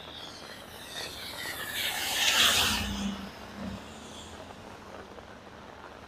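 A car passes by on a rain-soaked road, its tyres hissing through the water, building to a peak about two and a half seconds in and then fading away, with steady heavy rain in the background.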